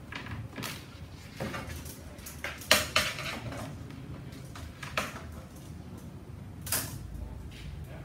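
Handling noise from a thin wire antenna being laid out and held against a long ruler on a tabletop: several light clicks and knocks, with the loudest clatter about three seconds in and another near the end.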